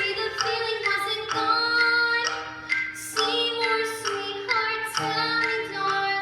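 A young woman singing a slow show-tune melody in held notes, over an instrumental accompaniment.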